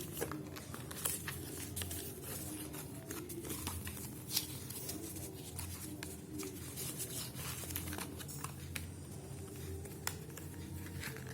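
Phone packaging being handled and crinkled, with scattered light clicks and taps, over a steady low hum.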